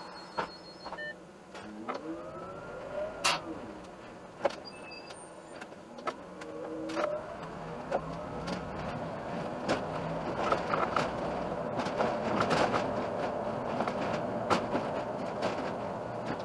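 Iveco Urbanway city bus pulling away from a stop: a rising and falling engine note a couple of seconds in, then engine and road noise growing as the bus speeds up, with scattered clicks and rattles.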